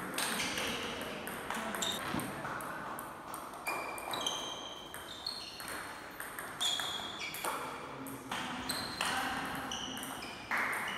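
Table tennis rally: the ball clicks off the paddles and the table in quick alternation, about two hits a second. Many hits carry a short high ping that rings on briefly in the large hall.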